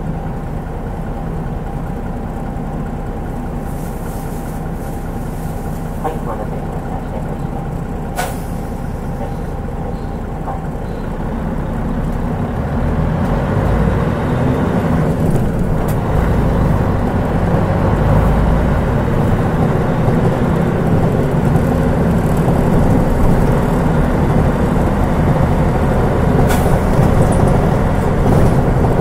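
Turbocharged Mitsubishi 6M70 straight-six diesel of a Mitsubishi Fuso Aerostar city bus, running steadily at first. About twelve seconds in it grows louder and deeper as the bus pulls away under load. A single sharp click about eight seconds in.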